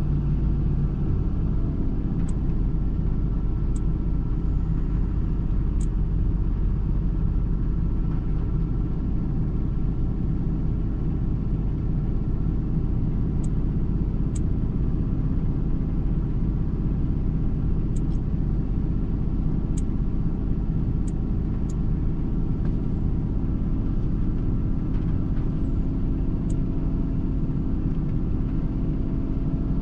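Nissan Titan's gasoline V8 idling steadily as it warms up, an engine with a multiple-misfire complaint. A few faint short clicks come and go over the idle.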